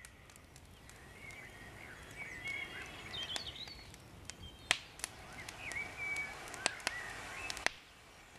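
Birds singing and calling, with a few sharp snaps from a small wood campfire, the loudest about halfway through.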